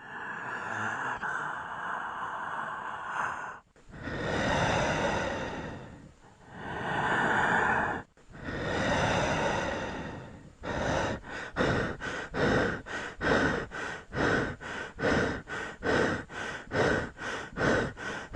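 Human breath sounds, air moving in and out of the lungs as played for auscultation: a long breath, then three slow, deep breaths of about two seconds each. About ten seconds in it turns to rapid, panting breathing at roughly two breaths a second.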